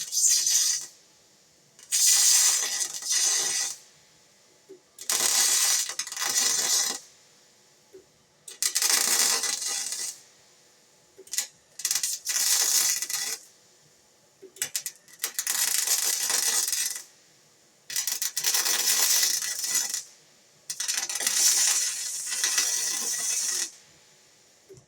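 Electric arc welding laid down in a series of short welds, the arc sizzling with a steady crackle for about two seconds at a time, then stopping for about a second, some eight times over.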